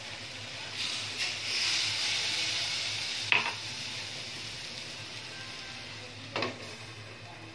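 Liquid poured into a hot stainless steel pan of chicken, potatoes and carrots, hissing and sizzling for about two seconds. A sharp knock follows a little past three seconds in, and a glass lid clinks down onto the pan near the end over a quieter steady sizzle.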